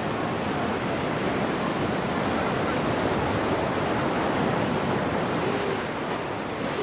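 Ocean surf washing in and breaking over the rocks below, a steady rush of water that swells a little in the middle as a wave breaks.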